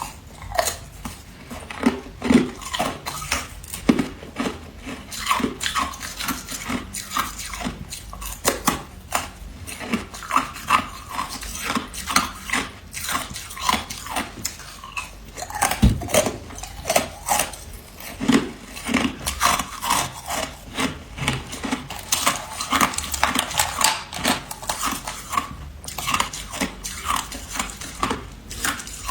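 A person biting and chewing ice close to the microphone: dense, irregular crunches several times a second, with no break.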